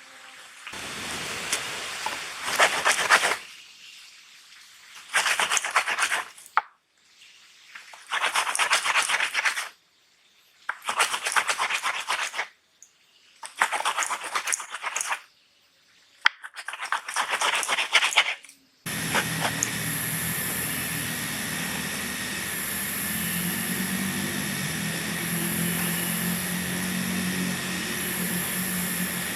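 A series of about six scraping or rubbing strokes, each a second or two long, with short pauses between. About two-thirds of the way through the sound cuts over suddenly to a steady hiss with a low hum.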